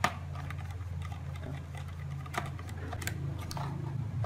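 Scattered small clicks and taps of a screwdriver and screws being handled on a laptop's metal chassis plate, the sharpest right at the start, over a steady low hum.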